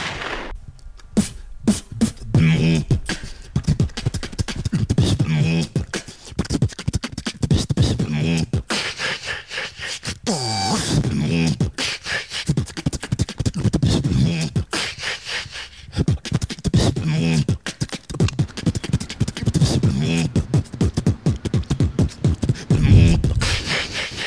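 Beatboxing: a voice making mouth-drum clicks and thumps mixed with hummed, pitched sounds in an uneven rhythm.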